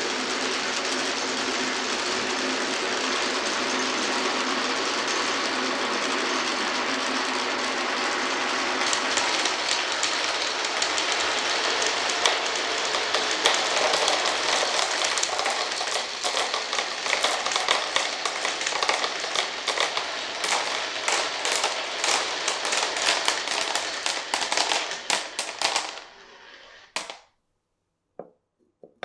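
Many glass marbles rolling and clattering down a wooden marble run. A steady rolling rumble turns into dense rapid clicking about a third of the way in, then dies away near the end, leaving a few last clicks.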